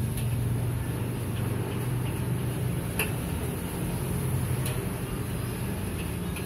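Metal spatula clinking and scraping against a steel wok as fried rice is stir-fried, a few sharp clinks, the clearest about three and five seconds in, over a steady low rumble.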